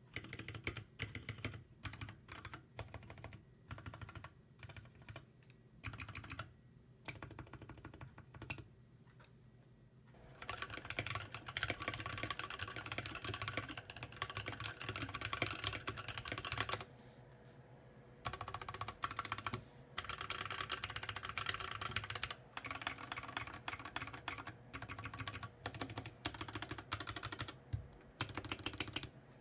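Typing on a KBD75 mechanical keyboard with NovelKeys Cream linear switches on lubed 60g bottom-out springs, under PBT Cherry-profile keycaps. Slow, scattered keystrokes for about the first ten seconds, then fast continuous typing, broken once by a short pause a bit past the middle.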